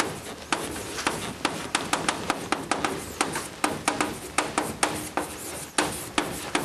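Chalk writing on a blackboard: a quick run of sharp taps and scratches, several a second, as words are written out stroke by stroke.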